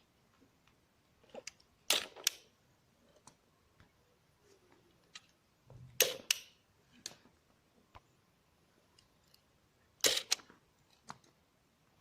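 Plastic clicks and snaps from a Lego rubber band gun's mechanism being worked: three quick clusters of two or three sharp snaps about four seconds apart, with lighter ticks between.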